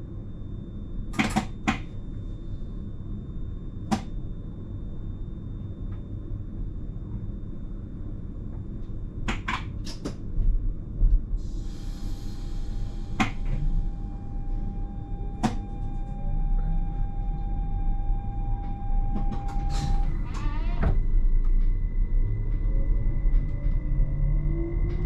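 Electric train cab standing at a platform: a low steady rumble with scattered clicks and knocks, a short hiss of air about halfway, and a steady tone for a few seconds. Near the end the traction motors start a whine that rises in pitch as the train pulls away.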